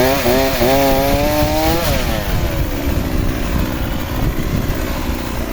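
Two-stroke chainsaw running hard while cutting branches, its pitch rising for about two seconds, then dropping and holding steady and lower as the chain bites into the wood.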